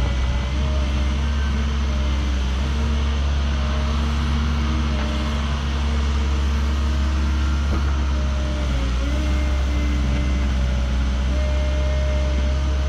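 Excavator diesel engine running steadily under load, with its pitch dipping briefly about nine seconds in as the hydraulics work.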